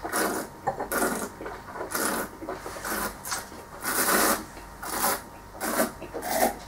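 A wine taster drawing air through a mouthful of red wine: a run of short rasping slurps, each lasting a fraction of a second, repeated through the sip.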